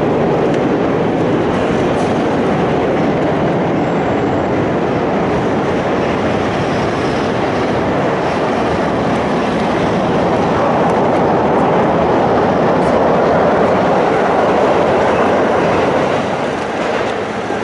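Trains running over a steel girder railway bridge: a loud, steady noise that grows a little louder past the middle and eases off near the end.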